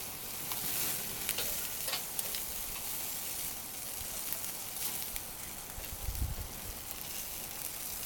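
Steady sizzling on a barbecue grill, with scattered small crackles.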